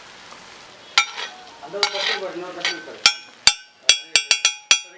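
Chicken sizzling on a hot griddle, then a metal spatula striking the griddle again and again from about three seconds in, the clangs coming faster toward the end.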